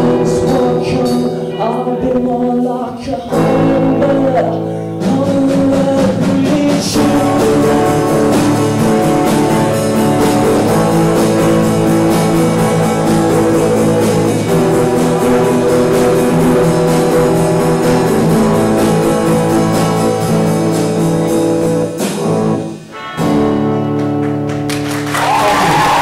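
Live acoustic guitar and drum kit with a singing voice, the drums keeping a steady beat. The song breaks off briefly near the end, comes back for a last few bars, then applause and cheering begin.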